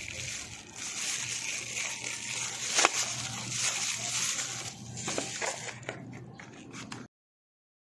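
Plastic packaging rustling and crinkling as grinder parts are handled in a cardboard box, with a sharp click about three seconds in and a few lighter knocks later. The sound cuts off suddenly about a second before the end.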